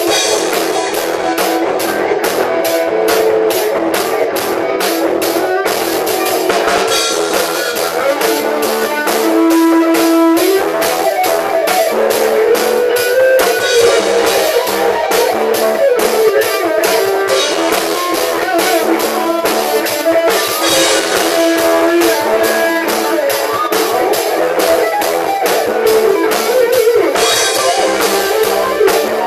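Rock music: a drum kit played steadily with frequent cymbal hits, with electric guitar. The sound is thin, with little bass.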